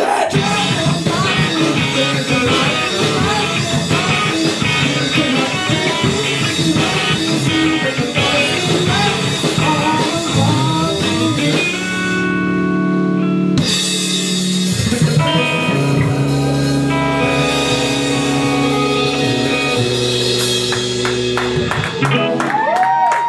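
Live rock band playing: electric guitar, drum kit and singing. About halfway the drums drop out for a moment, leaving held chords, before the band comes back in with sustained chords and a sliding guitar note near the end.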